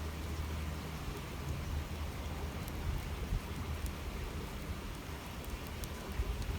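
Water flowing steadily along a small channel, an even babbling hiss with a low rumble underneath and a few faint high ticks.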